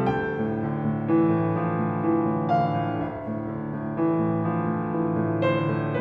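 Instrumental music made of held notes and chords, with a new note or chord coming in about every second.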